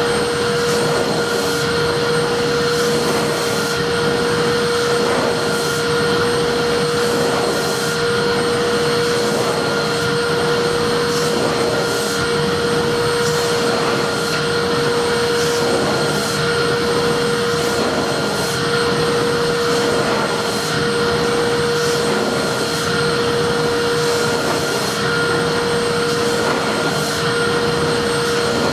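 Vacuum cleaner motor running steadily at constant speed, a loud even whine over a rush of air.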